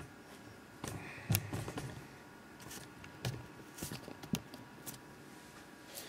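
A few light scattered clicks and knocks from handling things on a desk, over a faint steady hum.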